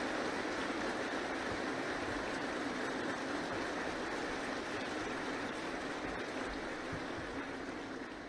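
Sustained applause from many people in a large chamber, steady at first and then dying away near the end.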